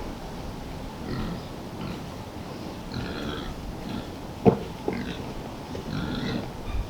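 Gloucestershire Old Spots pigs grunting in short, irregular bursts, with a sharp knock about four and a half seconds in and a smaller one just after.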